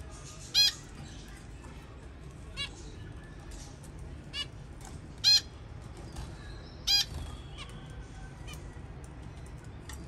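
Budgerigars giving short, sharp, high squawking calls: a loud one about half a second in, two more loud ones around the middle, and a couple of fainter calls between.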